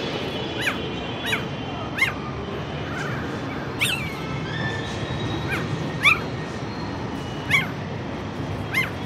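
Stray puppies yelping and whining in short, high calls, eight or nine at irregular intervals about a second apart, over a steady low background noise.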